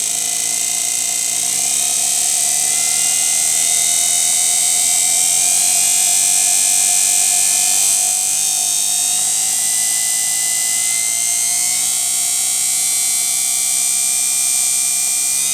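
Automatic washing machine's brushed commutator motor running free on a speed controller. Its whine with a high hiss rises slowly in pitch as the speed is raised.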